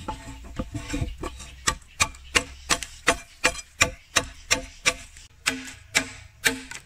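Billhook chopping into the end of a green bamboo tube resting on a stone: steady strikes about three a second, each with a short hollow ring from the tube.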